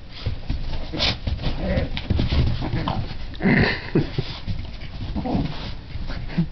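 Two Boston terriers, an adult and a puppy, play-fighting: short dog vocal sounds mixed with paws scuffling on carpet, loudest about three and a half seconds in.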